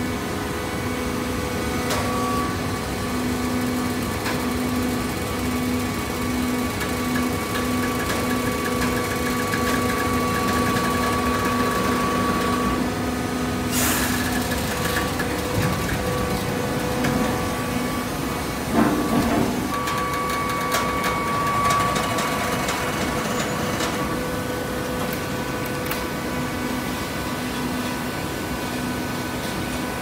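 Automatic horizontal hydraulic baler running, its hydraulic pump motor giving a steady hum with held tones. About halfway through there is a brief hiss-like burst, and a few seconds later a knock.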